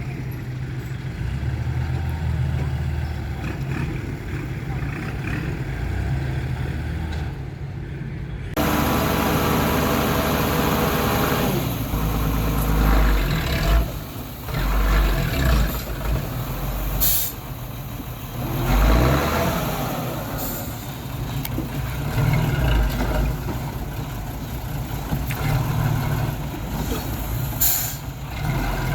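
Heavy diesel engines of dump trucks and earthmoving machinery running. The sound changes abruptly about a third of the way in, then rises and falls with load. Two short hisses come near the middle and near the end.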